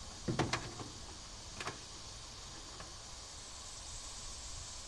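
A couple of quick clunks about half a second in and a single click near the two-second mark, over a steady hiss: a multimeter being picked up and set down in a new spot.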